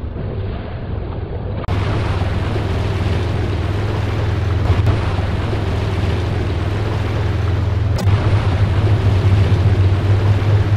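Open off-road utility vehicle driving over rough ground and fording a shallow stream: a steady low engine drone under heavy wind noise on the microphone, with water splashing off the tyres. A single sharp click about eight seconds in.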